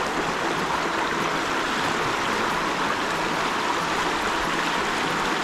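Shallow, rocky stream rushing steadily over cobbles and small riffles.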